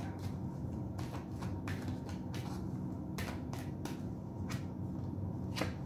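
A tarot deck being shuffled by hand: the cards give about ten sharp, irregular clicks and slaps as they are pushed through one another, over a steady low hum.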